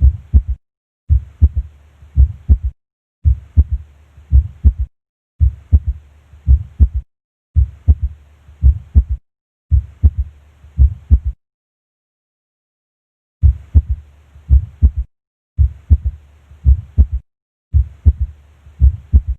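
Heart sounds at the cardiac apex: low lub-dub thuds with an added physiological third heart sound (S3, a ventricular gallop) after the second sound. They come in short repeated stretches of a few beats, with brief silent gaps between them and a silence of about two seconds just past the middle.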